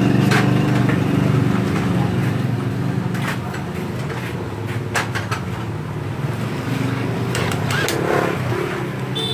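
A small engine running steadily in the background, with a few sharp clicks of tools handled against metal.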